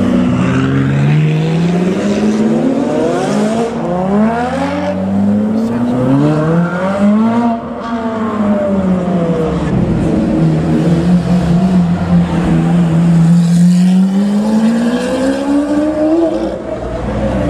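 Supercar engines revving hard as cars accelerate out of a tight hairpin one after another, the engine notes rising in pitch and breaking off in several quick upshifts. Midway a steady engine drone holds, then climbs again near the end as a Lamborghini Aventador's V12 pulls away.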